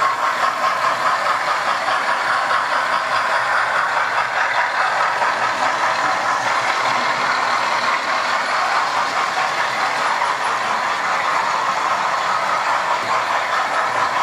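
Model train running along a model railway layout: a steady whirring rattle of its electric motor and small wheels on the track.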